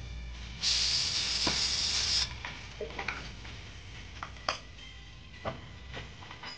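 A loud hiss like a spray, lasting about a second and a half, followed by scattered light clicks and taps.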